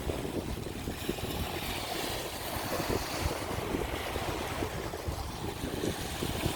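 Sea surf washing onto a beach, a steady rush of waves, with wind buffeting the microphone.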